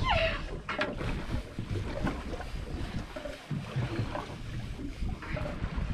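Wind buffeting the microphone and sea water moving against the hull of a fishing boat, a steady low rumble throughout. A short falling squeal comes right at the start, and a single knock just under a second in.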